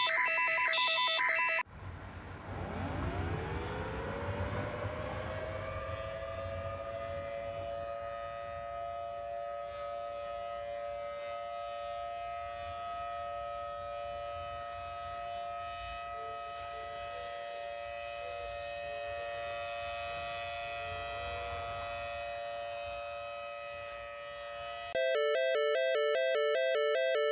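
Patterned electronic alert beeps stop about two seconds in. An emergency siren then winds up in pitch and holds a steady tone over a low rumble for about twenty seconds. Near the end a loud electronic alarm of rapidly alternating tones cuts in abruptly.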